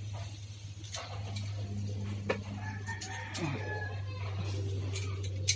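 Metal tongs clicking against the grill grate and chicken pieces a few times over a steady low hum. About three seconds in, a drawn-out animal call sounds in the background.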